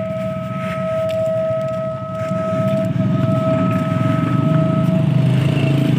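A diesel locomotive's whistle held as one long steady note, the continuous whistling trains use in fog. Under it a diesel tractor engine runs close by and grows louder about two seconds in.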